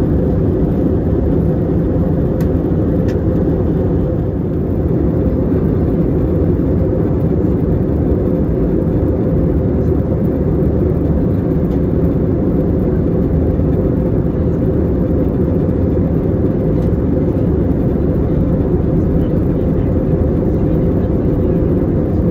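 Steady roar inside a jet airliner's cabin at cruise: engine and airflow noise, deep and even, with now and then a faint click.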